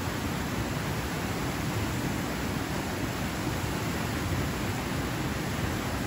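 A small river waterfall pouring over rocks into a pool: a steady, deep rush of falling water, unchanging throughout.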